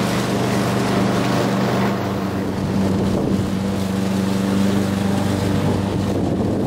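Troy-Bilt TB360 walk-behind lawn mower's small engine running steadily as it is pushed through the grass, with wind noise on the microphone.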